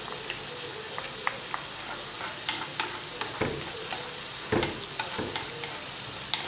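Diced carrots frying gently in oil in a pan with a steady sizzle, stirred with a spatula that scrapes and taps against the pan now and then. They are being sautéed after salt, turmeric and onion have been added, so that the carrots take up the spices.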